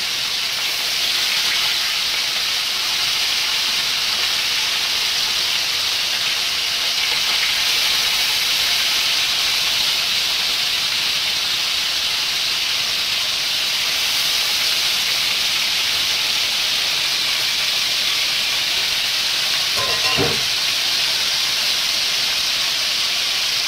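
Whole Indian mackerel frying in hot oil in a wok: a steady loud sizzling hiss.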